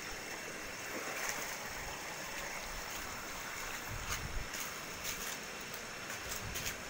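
Steady rush of falling water from a waterfall, with a few light clicks scattered through it.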